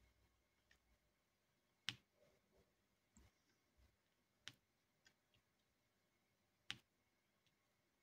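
Diamond-painting drill pen tapping small plastic resin drills onto the sticky canvas: short, sharp clicks, three louder ones a little over two seconds apart with fainter taps between.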